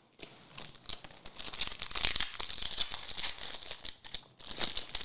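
Foil booster-pack wrapper crinkling as it is handled and opened by hand: a dense crackling rustle lasting about four seconds, then a shorter burst near the end.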